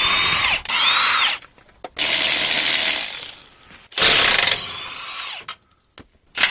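Cordless power driver running in about four short bursts, its motor whine rising at the start of each burst and falling at the end, as the bolts holding the Jeep Wrangler Rubicon's sway bar disconnect assembly are undone.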